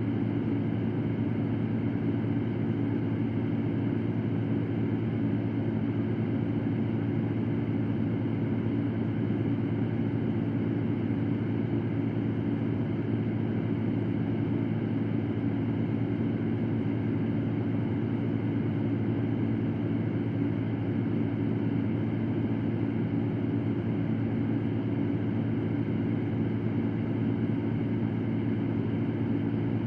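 Electric fan running steadily: an even airflow hiss over a constant low hum, with no change throughout.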